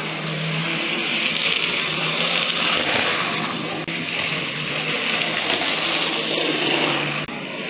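Hornby OO-gauge model trains running on the track: a steady whirring of small electric motors and gears with the rattle of wheels on rail. The sound breaks off abruptly twice, the second time with a brief dropout near the end.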